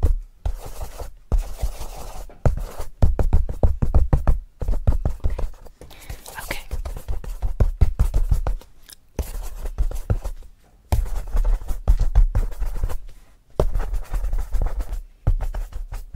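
Rapid, scratchy strokes across the paper of a spiral sketchbook held right at the microphone, with close handling thumps from the pad. The strokes come in quick runs broken by short pauses every couple of seconds.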